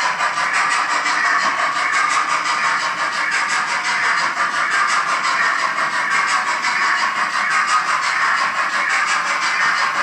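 Roco BR 01 H0-scale model steam locomotive running with its digital sound decoder: a steady hissing steam-engine sound with fast, even pulses, along with the model train rolling on the track.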